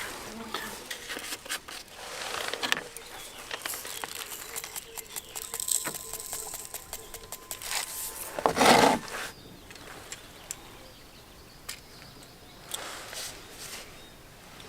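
Rustling and clicking of fishing tackle being handled, with one louder rush of noise about eight and a half seconds in, then quieter with a few scattered clicks.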